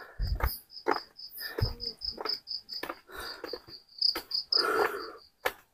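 A cricket chirping in a steady rapid train, about five chirps a second, that stops near the end. Footsteps on a stone-paved path make irregular thumps and scuffs underneath.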